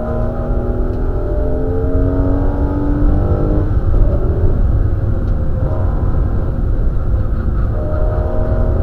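Porsche Boxster race car's flat-six engine heard from inside the cabin under hard acceleration, its pitch climbing steadily for the first three seconds or so. The note breaks off around four seconds in, as the car turns into a corner, and rises again near the end, all over a heavy low rumble.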